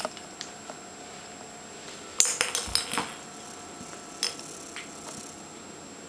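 A small cat toy ball knocked about on a wooden parquet floor by a playing kitten: a quick run of clinks and knocks about two seconds in, then one more sharp clink a couple of seconds later.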